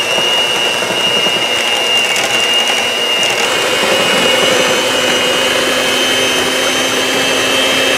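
Electric hand mixer running steadily with a high whine, its beaters churning flour into creamed butter and sugar for cookie dough.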